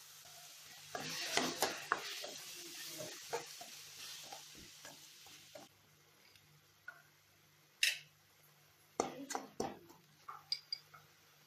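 Tomato paste being stirred into a hot mixture in a metal pan with a spatula: sizzling with scraping strokes from about a second in, dying down after about five seconds. Near the end come a few sharp scrapes and taps of the spatula on the pan.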